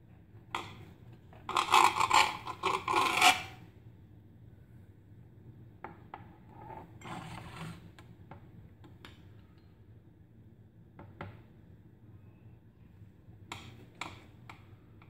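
A knife sawing through a layered sandwich of soft bread and scraping on a glass cutting board: a loud run of rasping strokes about a second and a half in, then softer scrapes and small taps as it cuts again.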